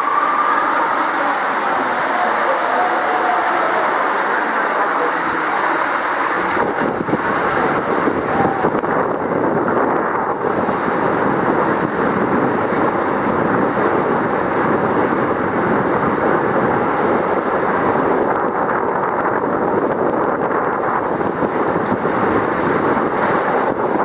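Rushing water and a rider's body sliding down an enclosed tube water slide, heard from inside the tube: a loud, steady wash of water noise that grows fuller and deeper about six seconds in, as the slide gets under way.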